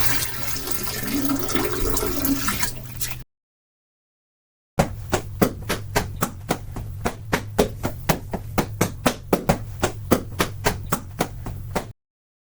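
Hand-made foley sound effects: a rushing, watery hiss for about three seconds, then, after a short gap, a long run of sharp knocks or taps, roughly three a second and unevenly spaced.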